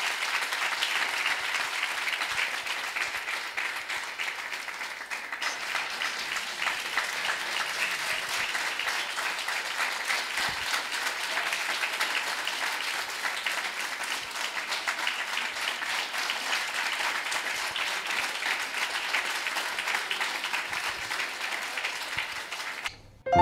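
A congregation applauding steadily. It cuts off abruptly near the end.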